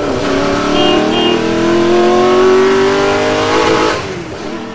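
Car engine revving up in an intro sound effect, its pitch climbing steadily for about four seconds before it fades away.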